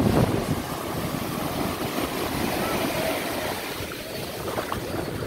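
Small waves washing in over a sandy shore, with wind noise on the microphone.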